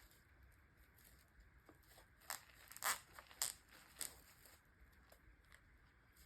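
Plastic trash bag crinkling as a small cable tie is ratcheted tight around its neck: a few short, faint, sharp rasps about half a second apart.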